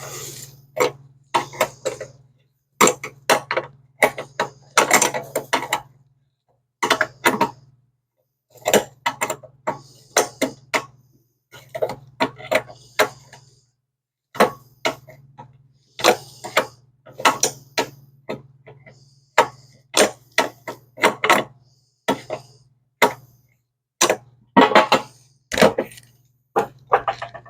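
Hand tools working on the metal parts of a vintage car dash: clusters of sharp clicks and knocks, several a second, broken by short pauses.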